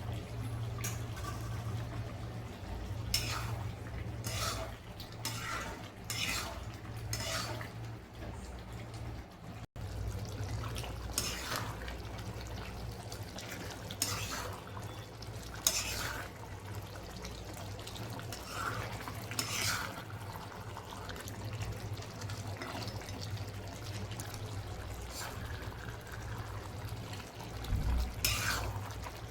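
Kitchen water and utensil sounds: liquid splashing and pouring, with metal pots and utensils clinking and scraping at irregular moments over a steady low hum.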